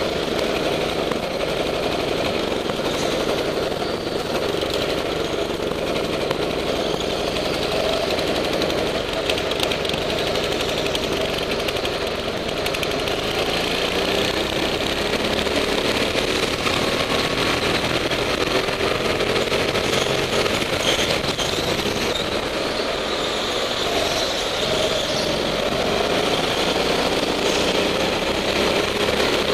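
Rental go-kart's petrol engine running hard through a lap, its pitch rising and falling as the throttle is lifted into corners and opened out of them.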